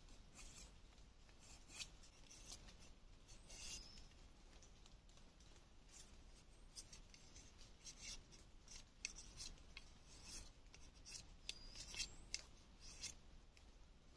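Knife shaving a thin bamboo stick: faint, short, irregular scraping strokes, coming more often in the second half.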